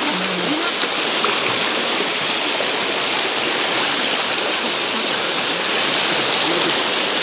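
Fast-flowing river water rushing steadily, a loud, even hiss.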